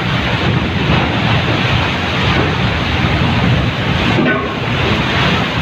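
Seawater surging along a ferry's side deck in heavy seas: a loud, steady rushing noise.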